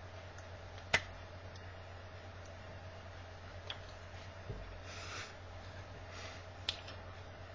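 Quiet room tone with a steady low hum, broken by a few light taps and a couple of soft rustles as hands meet and brush together while signing.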